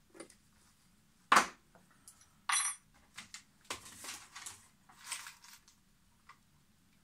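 Hand tools and metal bits handled on a workshop bench: one sharp knock about a second in, then a ringing metallic clink, followed by several softer clatters and rattles.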